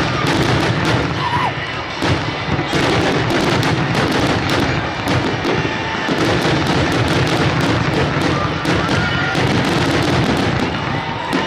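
Fireworks going off in a dense, continuous barrage: rapid, overlapping bangs and crackles with no break between them.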